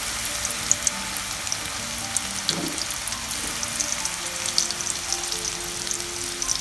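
Tempe strips deep-frying in hot oil in a wok: a steady sizzle full of fine crackles and pops, with a spatula stirring through the oil partway through.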